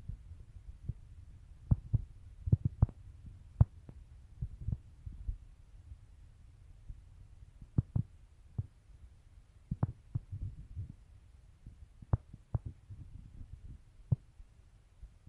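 A steady low rumble with irregular sharp knocks and thumps scattered through it, some close together in pairs.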